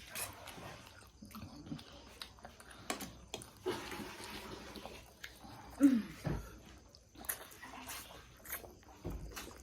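Eating spicy noodles: wet slurping and chewing with scattered small clicks. A short loud voiced gasp with falling pitch comes about six seconds in.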